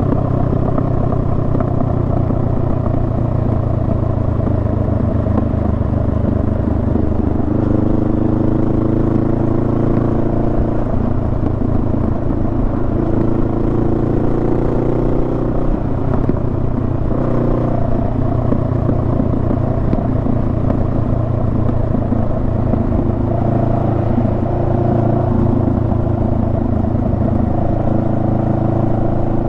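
Honda Rebel 500's parallel-twin engine running under way. Its pitch rises and falls several times through the middle as the revs change, then holds steady.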